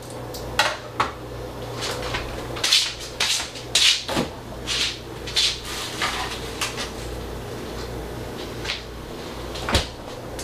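Kitchen clatter: irregular knocks and clinks of dishes and utensils handled on a counter, with a refrigerator door opened about six seconds in.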